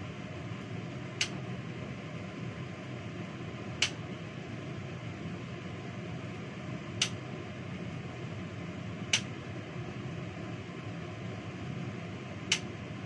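Steady hum of a kitchen exhaust fan, with five sharp light clicks a few seconds apart from hands working with food and utensils at the sink.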